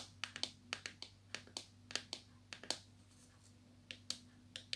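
Fingernails tapping and clicking on a mystery squishy's plastic blind-bag packaging: a run of sharp, irregular light taps, pausing for about a second near three seconds in.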